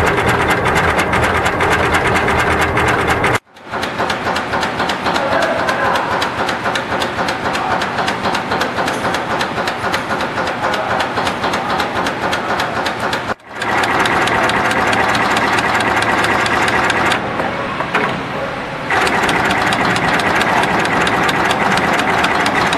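Automatic axial component insertion machine running at speed: a fast, continuous mechanical clatter of rapid clicks from its insertion head and component feed chain. It breaks off twice for a moment.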